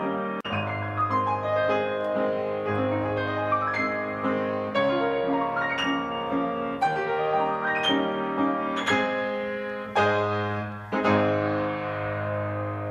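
Piano playing slow chords, a new chord struck about every two seconds and left to ring and fade.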